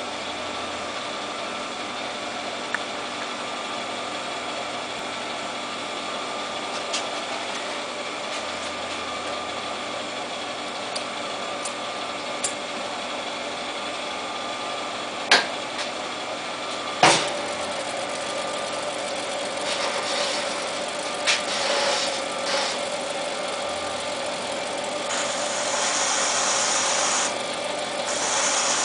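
Jet TL-25 turret lathe running with a steady mechanical hum. Two sharp knocks come about 15 and 17 seconds in, after which a steady tone sits over the hum, and a hiss comes and goes near the end.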